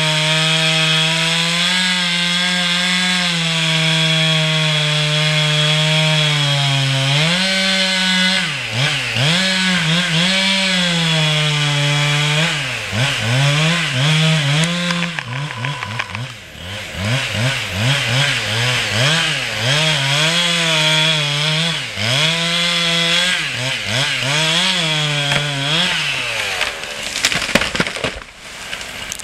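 Chainsaw cutting into a beech tree: the engine runs steadily under load at first, then its pitch repeatedly dips and climbs back up as it works through the wood. Near the end the engine note falls away amid a few sharp cracks.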